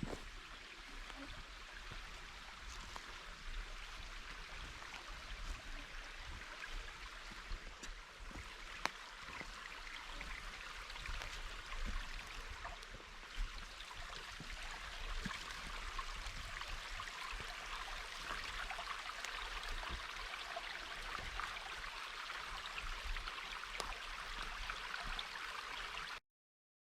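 Shallow creek with little water in it, trickling and splashing steadily, then cutting off suddenly near the end.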